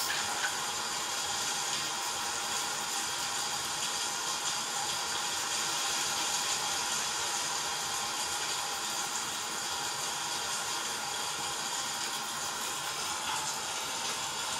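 A steady, even hiss that holds at one level throughout.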